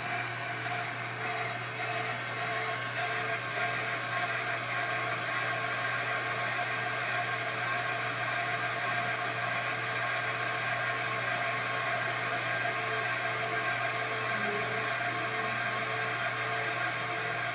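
On-car brake lathe running, spinning the brake rotor while its cutting tips feed across the rotor face to resurface it. It makes a steady motor whine with held tones over a hiss, plus a faint pulse about twice a second.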